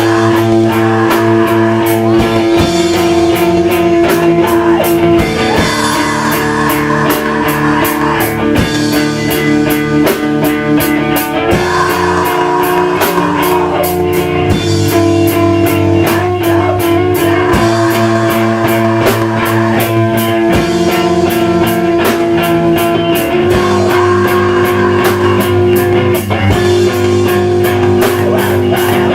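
A post-hardcore band playing live at full volume: distorted electric guitars holding sustained chords over fast drums with steady cymbal hits.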